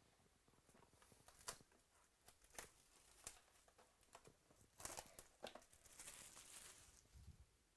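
Faint crinkling and tearing of trading-card pack wrappers being opened by hand: scattered sharp crackles, with a longer stretch of crinkling about five seconds in.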